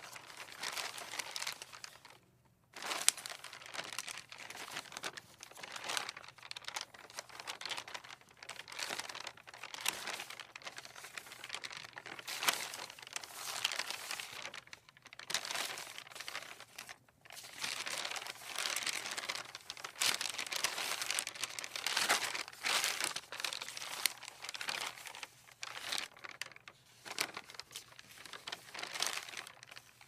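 Sheets of paper rustling in the wind: irregular crinkly rustling that swells and fades in uneven waves, with a brief pause and a sharp crackle a few seconds in.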